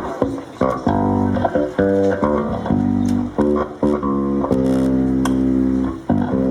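Bass playing a solo intro line of plucked notes, some short and some held for about a second.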